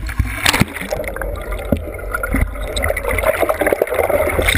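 Seawater rushing and splashing over an action-camera housing as it is pushed through the choppy surface. Once it is under, this gives way to a bubbling gurgle near the end. A steady low rumble and scattered knocks run underneath.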